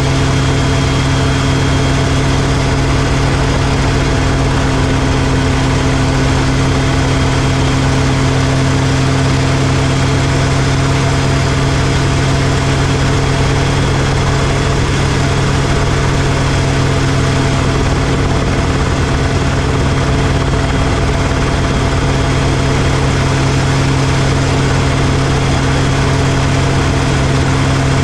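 RotorWay kit helicopter in flight: its piston engine and two-blade main rotor make a steady, unchanging drone with a constant hiss over it.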